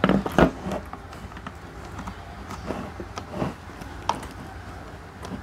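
Plastic tail-light housing and LED panel being handled and fitted together: scattered clicks and knocks of plastic on plastic, the loudest about half a second in.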